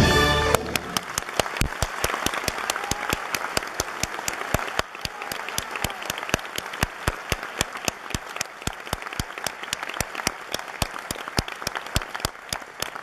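The music's final held chord cuts off about half a second in. An audience then applauds with many separate claps, thinning out toward the end.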